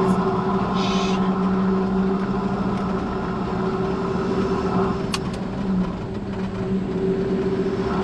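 Ford Ranger ute driving, heard from inside the cab: a steady engine and road drone with a constant low hum.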